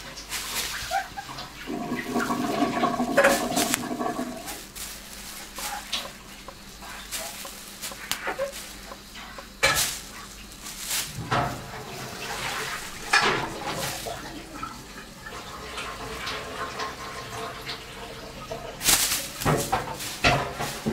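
Thin plastic shopping bag rustling and crinkling in irregular bursts as a kitten paws at it, gets under it and runs with it. A steady pitched sound is heard for a couple of seconds near the start.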